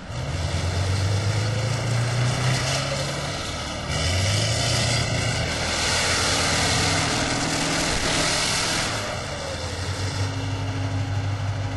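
Heavy tracked armoured vehicle running: a low engine drone under a wide rushing noise that swells and ebbs several times, loudest in the middle.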